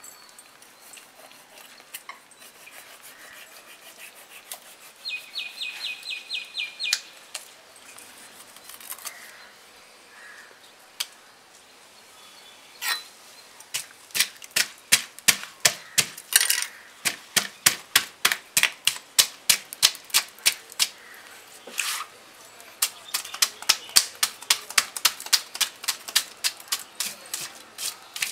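Knife blade scraping the large, tough scales off a whole sea bass. Scattered strokes at first, then from about halfway a fast run of sharp scratchy strokes, about three or four a second.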